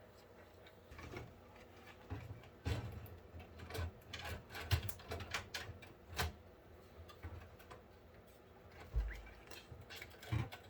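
Scattered clicks, knocks and rubbing of a PC case's lower fan tray, with its fans, being handled and slid into place, starting about a second in.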